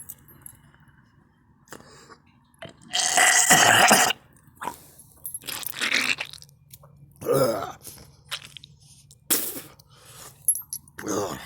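A person retching and vomiting: one long, loud heave about three seconds in, then several shorter gagging retches.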